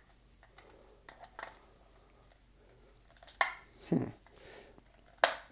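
Screwdriver and hands working at a stuck, stripped screw in a plastic toy case: scattered small clicks and scrapes, with a sharp click about three and a half seconds in, a dull knock just after it, and another sharp click near the end.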